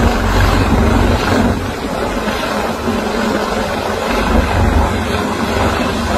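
Search-and-rescue helicopter hovering low over the sea: rapid low rotor thudding under a steady rushing noise.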